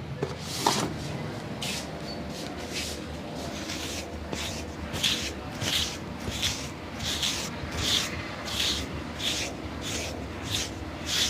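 Hands rubbing rhythmically over skin and hair in a massage, a soft hiss with each stroke, about one and a half strokes a second, growing louder about four seconds in.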